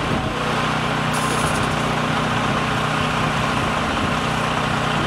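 Steady drone of running machinery with a low hum, and a brief high hiss about a second in.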